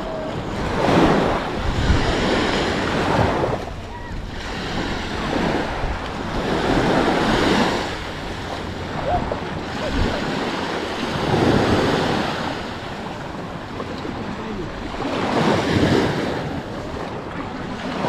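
Small waves breaking and washing up a sandy beach, each surge swelling and fading about every four to five seconds. Wind rumbles on the microphone underneath.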